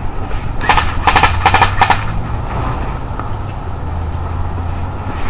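Airsoft AK-47 firing on full auto in four short, rapid bursts of shots, starting about a second in. A steady low rumble runs underneath.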